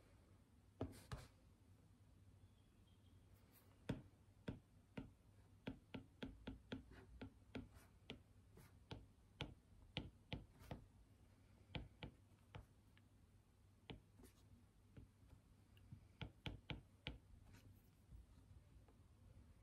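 Faint clicks and taps of a plastic stylus tip on a tablet's glass screen during handwriting, coming in quick irregular runs with short pauses, over a low steady room hum.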